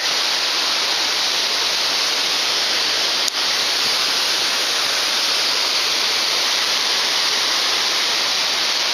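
Water pouring over the steps of a river weir dam and churning in the whitewater just below, a loud, steady rush with one brief break about three seconds in.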